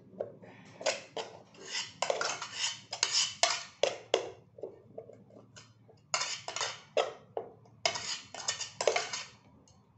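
Metal rice pot (kaldero) being knocked and scraped as cooked rice is emptied out of it onto a plate: runs of clanks and scrapes, with a lull about halfway through.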